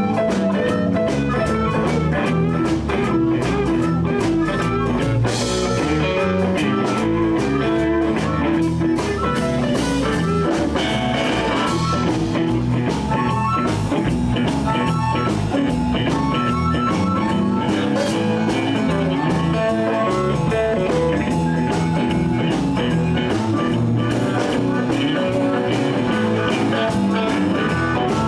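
Live blues band playing: electric guitar over bass and a drum kit, a steady full groove.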